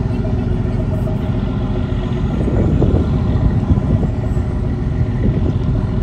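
A boat engine running steadily with a low rumble, a little louder for a moment around the middle.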